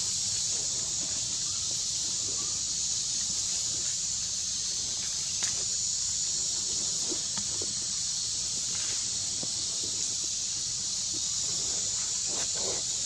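Steady high-pitched insect chorus, with faint scattered rustles and ticks of dry leaves as a baby monkey picks through the leaf litter.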